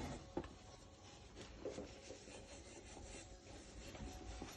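Wire wool rubbing over a freshly soldered copper pipe joint, faint irregular scratching to clean off flux and residue.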